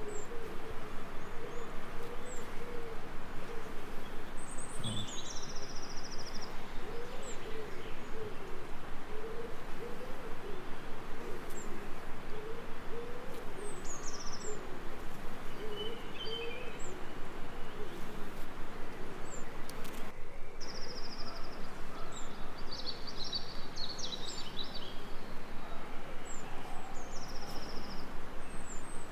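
Nature soundscape of birdsong: a low, wavering hoot-like call that pulses evenly throughout, with short high chirps and trills from small birds scattered over it.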